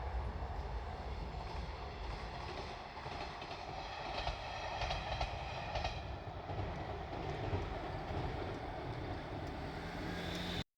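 KiHa 185 limited-express diesel railcar passing, its engine running with wheels clicking over the rail joints, the clicks thickest around the middle. The sound cuts off suddenly near the end.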